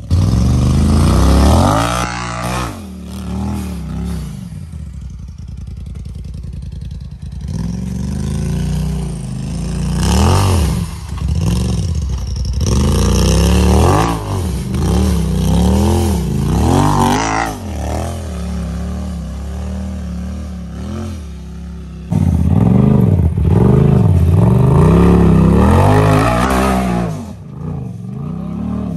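Side-by-side UTV engine revving up and down in repeated throttle bursts as it works over rough ground, with a longer, louder burst of throttle near the end.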